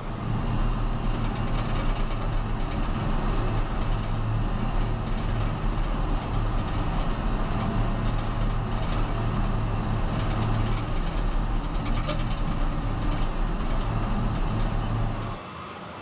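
Vermeer tracked surface excavation machine cutting through hard rock: its diesel engine running under load while the cutting drum grinds the stone, a steady heavy rumble that cuts off suddenly near the end.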